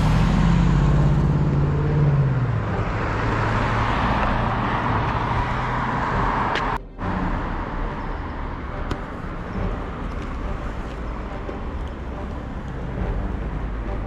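Street traffic at an intersection: a car's engine close by, its pitch falling over the first couple of seconds as it moves off, then the rushing tyre noise of passing cars. The sound drops out for a moment about seven seconds in, and steadier, softer traffic noise follows.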